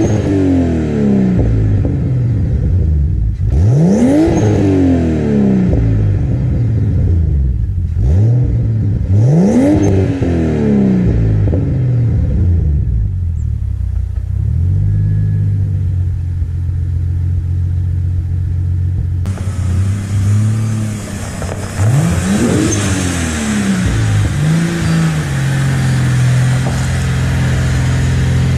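Turbocharged BMW M52B28TU straight-six in an E46 328i, breathing through a 3-inch exhaust with a Magnaflow muffler, being revved in three quick throttle blips, each rising sharply and falling back slowly to a steady idle.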